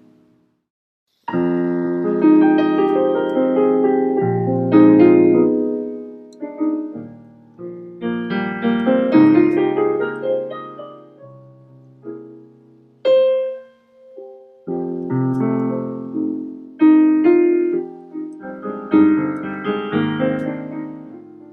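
Solo piano playing slow, sustained chords in phrases that swell and fade, starting about a second in after a short silence.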